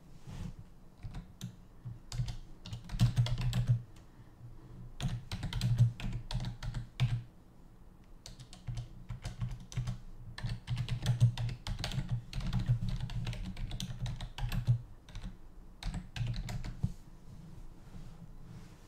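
Typing: several bursts of quick taps with short pauses between, thinning out near the end.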